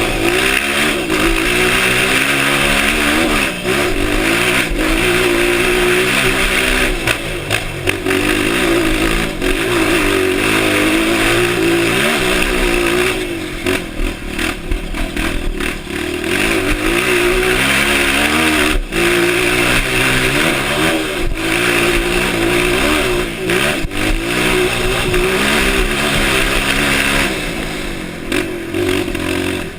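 Honda CRF motorcycle engine revving up and down over and over, its pitch rising and falling every second or two, easing off for a moment about halfway through and again near the end.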